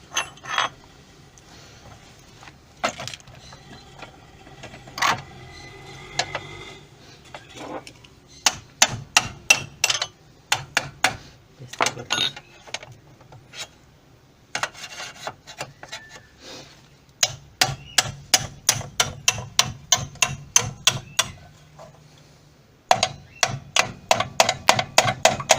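Hammer striking a chisel against the base of a bearing in a Mabe washing machine transmission, in runs of quick metal-on-metal blows about three a second with pauses between. The bearing is stuck fast after water has leaked past its seals.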